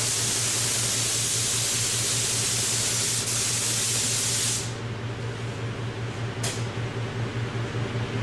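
Gravity-feed paint spray gun hissing steadily as it lays the third coat of white waterborne two-part polyurethane topcoat on an aircraft wing. The hiss cuts off a little over four seconds in, and there is one short burst about two seconds later. A steady low hum runs underneath.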